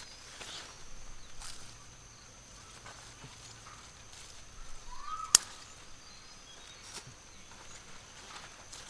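Quiet rural outdoor ambience: a steady high-pitched insect drone, a few soft rustles, and one sharp click a little past halfway.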